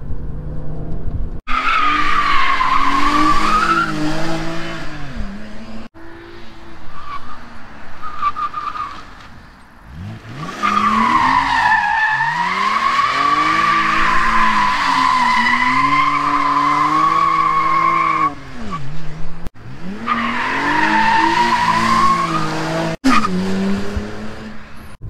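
BMW 330i E90's N52 straight-six revving hard while the rear tyres squeal through donuts, each long, high squeal wavering up and down with the engine. The custom limited-slip differential holds throughout, as the driver judges it. Several spins follow one another, each breaking off abruptly.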